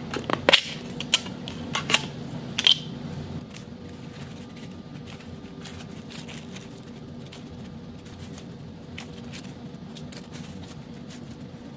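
Small plastic clicks and taps as tiny nail-art parts are sorted into a clear plastic multi-compartment parts case. A few sharp clicks come in the first three seconds, then only faint scattered ticks over a steady low hum.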